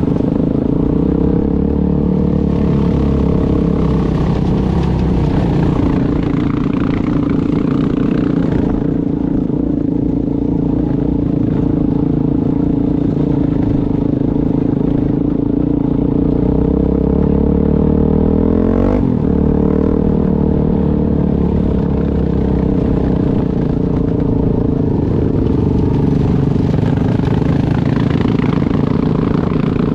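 Off-road vehicle's engine running steadily while under way on a rocky dirt trail, heard up close from the machine itself. About two-thirds of the way through, its note rises and then drops sharply.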